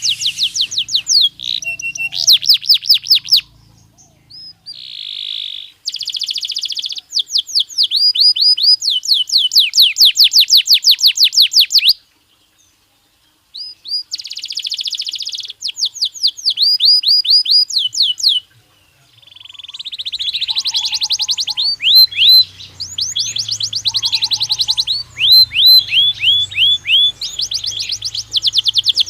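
Belgian canary singing: rapid trills of repeated falling notes in phrases, with a pause of about two seconds near the middle.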